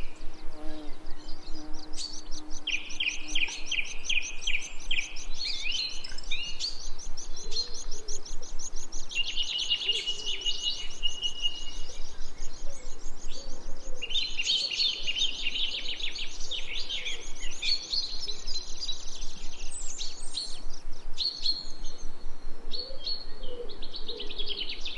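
Several songbirds singing at once, a dense mix of rapid trills and repeated high chirps.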